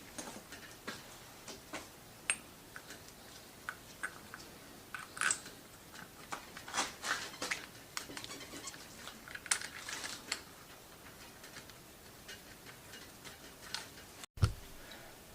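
Scattered light metallic clicks and clinks of hand tools and parts being handled while working on a motorcycle engine, irregular and without rhythm, with a low thump near the end.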